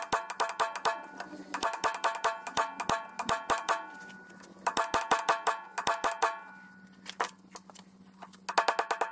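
Hammer blows driving a new wheel-bearing race into a Spicer front axle hub, struck through the old bearing used as a driver; each blow rings like struck steel. Runs of quick blows, about five a second, in three bursts with short pauses, then a few single strikes and another quick run near the end.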